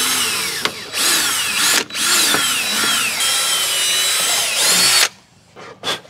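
DeWalt cordless drill boring holes through a plastic trim panel, its motor whine rising and falling in pitch with the trigger. It runs in three spells with short breaks and stops about five seconds in.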